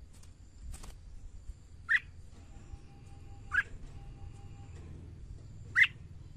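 Red-whiskered bulbul giving three short, sharp call notes about two seconds apart, the last the loudest.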